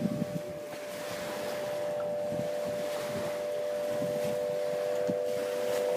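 Aeolian wind harp strings set sounding by the wind off the bay: several steady humming tones held together, one growing stronger near the end, over wind gusting on the microphone.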